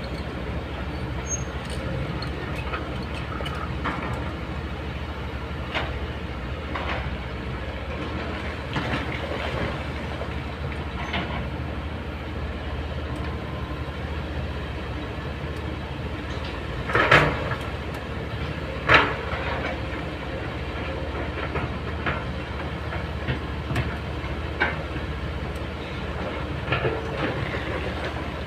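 Kobelco crawler excavator's diesel engine running steadily, with scattered clanks and knocks from its steel tracks and bucket working rocky soil. Two loud, sharp knocks come a couple of seconds apart past the middle.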